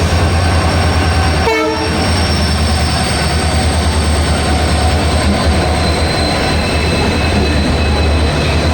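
Train running, a steady low rumble of wheels and carriages on the rails, with a brief tone-like blip about a second and a half in.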